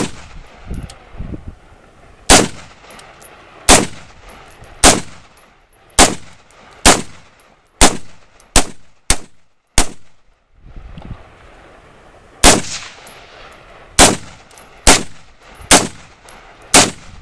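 Rifle fired one shot at a time, about fifteen shots in all, each a sharp crack with a short echoing tail. The first ten come ever faster, from about a second and a half apart down to about half a second; after a pause of about two and a half seconds, five more follow roughly a second apart.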